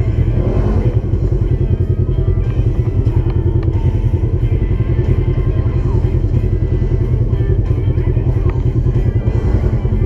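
A UTV engine running steadily, with music mixed in.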